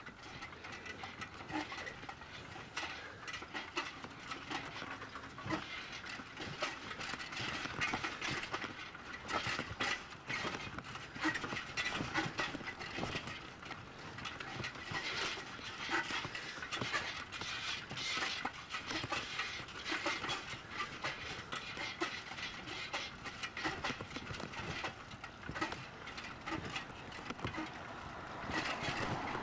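Bicycle rattling and clicking as it rolls along a concrete sidewalk, irregular knocks from the bumps and slab joints over a steady rush of tyre and wind noise.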